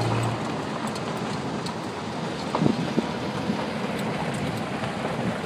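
Jeep driving off-road: a steady rumble of engine and tyres over rough ground, with a couple of sharp knocks about two and a half to three seconds in.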